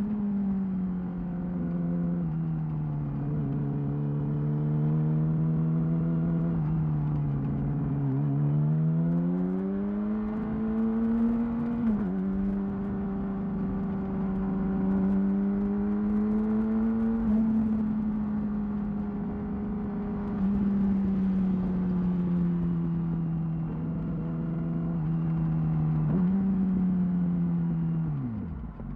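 2008 Yamaha R6's inline-four engine through a Termignoni exhaust, running under way with its pitch rising and falling with the throttle. The pitch jumps up abruptly about twelve seconds in and again a few seconds before the end, then drops away sharply just before the end.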